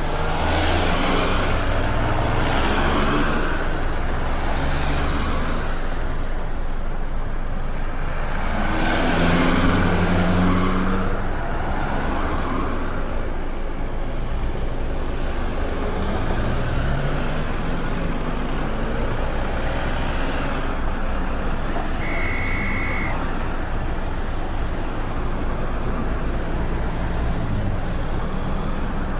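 Busy city street traffic: a steady roar of cars and trucks with engines running and vehicles swelling past, two louder passes early on and midway. A short high beep sounds about two-thirds of the way through.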